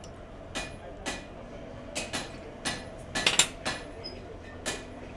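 Light metal-on-metal clinks and taps at an even pace of about two a second, with a quick run of sharper, louder clinks a little past the middle.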